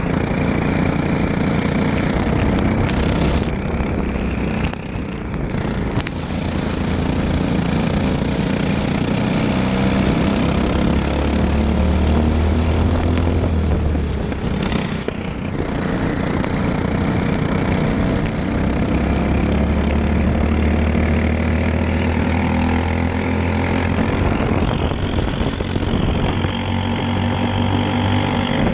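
Racing kart's single-cylinder four-stroke engine (Briggs & Stratton LO206) at race speed on a wet track, revving and easing off through the corners, dropping away briefly twice, with a steady hiss of spray and wind.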